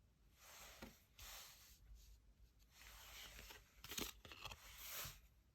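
Tarot cards being handled and shuffled: a run of soft papery swishes and rustles, a few a second apart, the sharpest about four seconds in.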